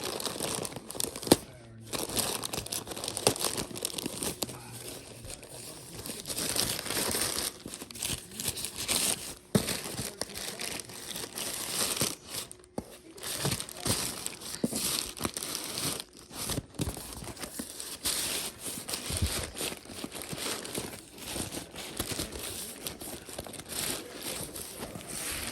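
Packaging of a mailed parcel being handled, torn open and crumpled by hand, with crinkling and ripping throughout and a loud sharp crack about a second in.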